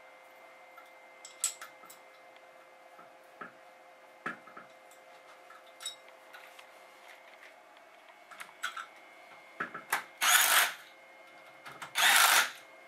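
Light clicks and taps of bolts and tools being handled, then a cordless power driver runs in two short bursts near the end, spinning in the bolts that hold a bracket onto a Saginaw-style power steering pump.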